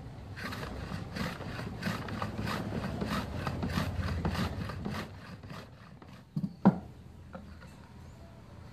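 Shallots being sliced on a wooden mandoline slicer: the wooden pusher box is rubbed back and forth over the blade in quick scraping strokes, about three a second, which stop after about five seconds. A little later come two sharp wooden knocks, the loudest sounds.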